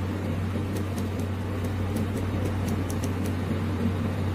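Automatic corrugated metal hose welding machine running during a weld: a steady electrical hum from the arc and welding power source, with faint high ticks now and then.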